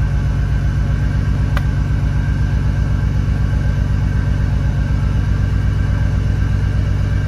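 Toyota 2JZ-GTE VVTi inline-six, run by an EMU Black standalone ECU, idling steadily at about 1,200 rpm, heard from inside the cabin.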